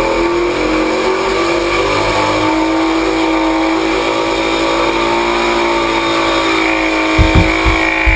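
Twelve-rotor Wankel rotary engine running at high revs with a steady, smooth note, the pitch sagging slightly about seven seconds in, followed by a few low thumps near the end.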